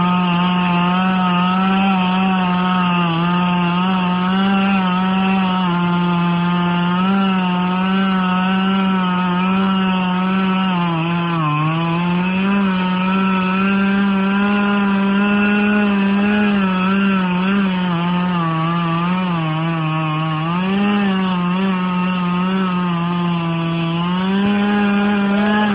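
Chainsaw running at high revs as it cuts through a tree trunk at the base in a felling cut. The engine holds a steady high whine that sags in pitch a few times as the bar bogs down in the wood.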